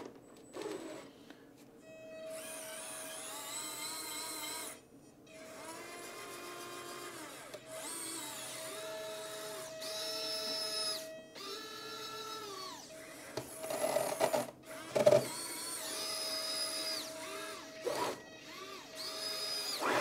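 Small electric motors of a 3D-printed RC tracked skid steer loader whining in runs of a few seconds, each rising in pitch as it starts, holding steady and falling away as it stops: the track drive motors and the 12 V linear actuators working the bucket arms. A few knocks about three quarters of the way in.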